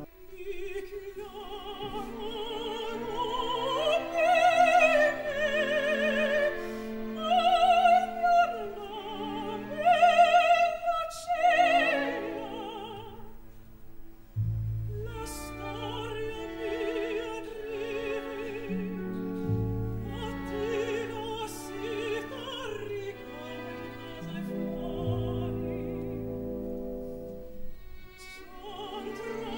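Operatic soprano singing with a wide vibrato over a quiet orchestra. Low sustained notes come in under her voice about halfway through.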